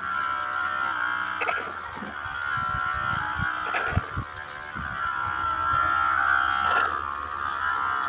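Steady whine of a small electric suction pump drawing stingless-bee honey through a hose from the opened honey pots, with a few handling clicks around a second and a half and four seconds in.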